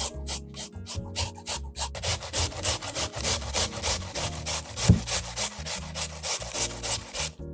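Food being rubbed across a hand grater in rapid, rhythmic rasping strokes, about five a second, with one louder knock about five seconds in. The strokes stop just before the end.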